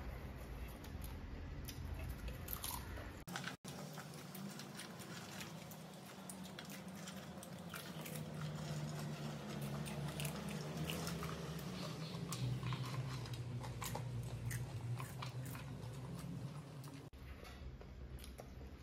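Popcorn being chewed and crunched by mouth, with many small crisp crackles as mouthfuls are bitten and chewed.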